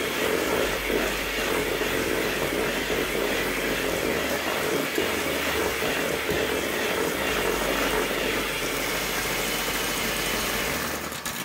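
Hamilton Beach electric mixer running steadily, its two beaters beating butter-and-sugar cookie dough in a stainless steel bowl. The motor stops near the end.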